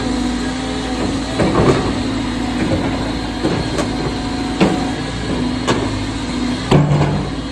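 Caterpillar 320GX excavator's diesel engine running steadily, with several sharp knocks at irregular intervals. The loudest knock comes near the end.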